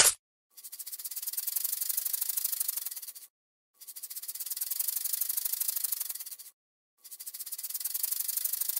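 Snake rattling: three long, dry, rapid buzzes, each building up and fading over two to three seconds with short breaks between, after a brief sharp burst right at the start.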